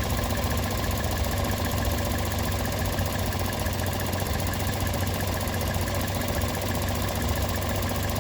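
Car engine idling steadily with a fast, even ticking, as the evap purge valve solenoid is pulsed open at a 20% duty cycle with its line disconnected, drawing in unmetered air. The engine is compensating for this vacuum leak.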